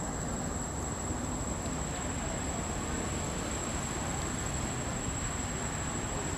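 Steady outdoor background noise: a constant low rumble with a thin, high, steady whine over it.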